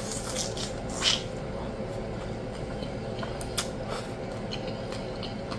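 Biting and chewing a crisp, consommé-dipped birria taco: wet, squishing mouth sounds with a few sharp crunches.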